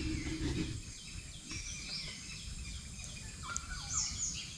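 Several birds chirping, with short high calls that fall in pitch, repeating over a steady low rumble.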